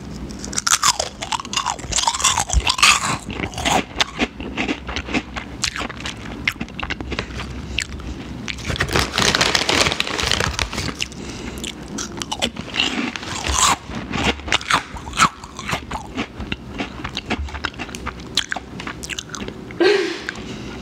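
A person crunching and chewing Korean turtle chips, a crisp corn-style snack, close to the microphone: an uneven run of sharp crunches with chewing between them.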